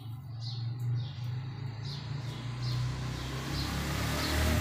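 A motor vehicle's engine running with a steady low hum, its noise swelling toward the end as it passes close by, with small birds chirping now and then.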